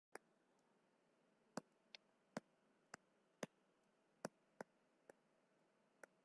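Faint, sharp clicks of a stylus tapping a drawing tablet during handwriting, about ten at irregular intervals over near silence.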